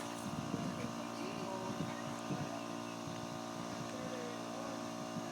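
A steady machine hum with several constant tones, with faint voices in the background.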